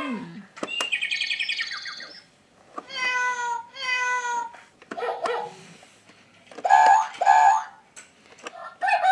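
Battery-powered Pororo toy mini piano playing short recorded sound effects, including animal calls, each set off by a button press. It plays a chirpy burst, then pairs of drawn-out tones, separated by pauses and small clicks from the buttons.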